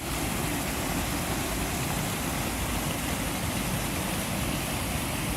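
Rain-swollen waterfall and creek in flood, pouring into a pool: a steady, even rush of water with a strong low rumble.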